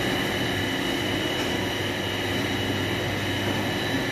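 Steady machinery drone from a bakery's revolving-deck bread oven: a low hum with a thin, steady high whine over it.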